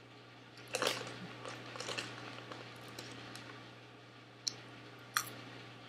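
Someone eating Cheetos Cheddar Jalapeño popcorn: one louder crunch about a second in, then scattered small crunches and finger-handling noises, with two sharp clicks near the end.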